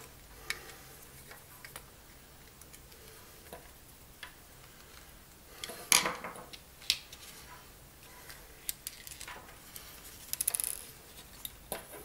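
Light clicks and taps of a game controller's plastic case and circuit board being handled and fitted back together. About six seconds in a screwdriver is set down on the table with a louder clatter, and near the end there is a quick rattle of small clicks.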